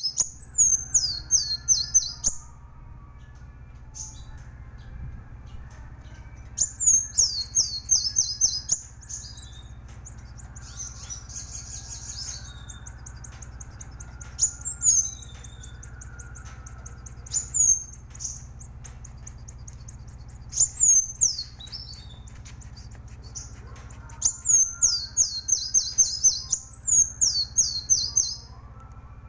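A Kolibri Wulung sunbird singing vigorously. It gives bursts of rapid, high, downward-sweeping notes, about a second or two each and repeated every few seconds, with a buzzy trill about a third of the way through. A steady low hum runs underneath.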